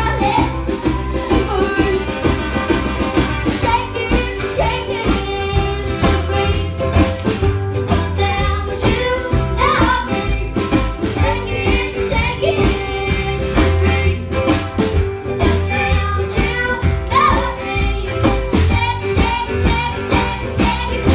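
Live acoustic-electric band playing a song: upright bass, acoustic guitar, ukulele, electric guitar and a snare and kick drum, with a young girl's voice singing over it.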